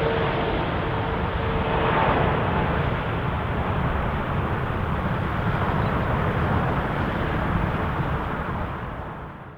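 Boeing 777 freighter's GE90 jet engines running loud: a steady roar with a deep rumble and a faint whine that stops about two seconds in. The roar fades out near the end.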